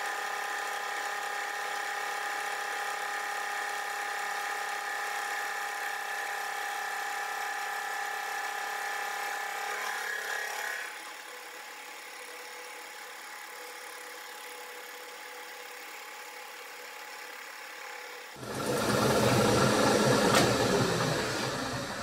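Bridgeport milling machine's insert face mill taking a light finishing cut across a metal plate: a steady whine of several tones. About eleven seconds in the cutter comes off the work and the spindle runs on more quietly. For the last few seconds a louder rushing noise takes over.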